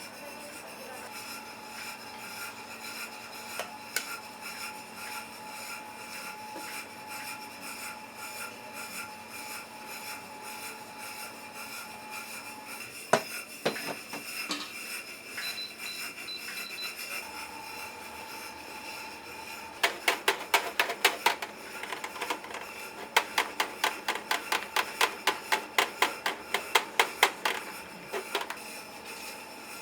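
Restaurant kitchen work over a steady hum of kitchen equipment: a few scattered knocks, then about two-thirds of the way in two quick runs of even, sharp knocks, about four a second, the sound of a utensil striking a hard surface such as a knife chopping on a board.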